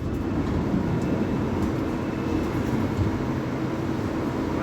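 A CAF-built Série 500 Fase II metro train running on the line, a steady rumble of wheels and drive with a low hum.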